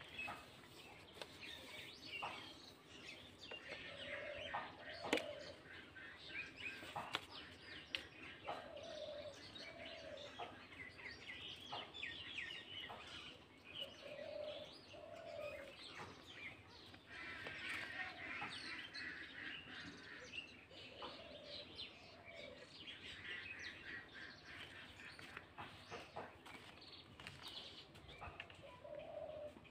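Birds chirping and twittering in a busy chorus, with a lower two-note call repeating about every five seconds. A few sharp clicks stand out, the loudest about five seconds in.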